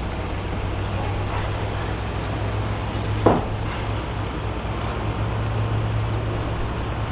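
Steady low machine hum, with one sharp knock about three seconds in.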